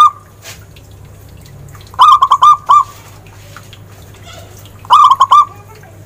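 Zebra dove singing: short phrases of four or five quick, clipped coos. One phrase ends right at the start, then two more follow about three seconds apart.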